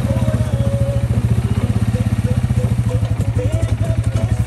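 ATV engine idling steadily, with a fast, even pulse.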